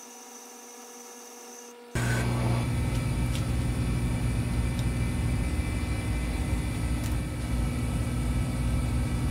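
1941 South Bend Heavy 10 lathe running with a faint steady whine during a boring pass. About two seconds in it cuts abruptly to a loud, steady low rumble and hum, with a few faint clicks.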